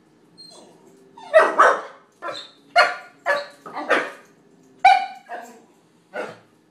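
Puppy barking at a cat in a run of about ten short, high yaps, some in quick pairs, starting about a second in.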